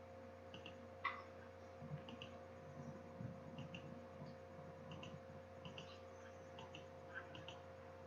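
Very quiet room tone: a steady faint hum with soft, irregular paired clicks every second or so.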